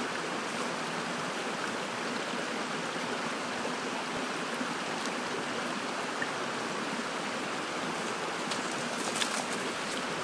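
Small mountain creek running steadily over its bed, an even rushing of water. A few faint footfalls on brush and gravel come near the end.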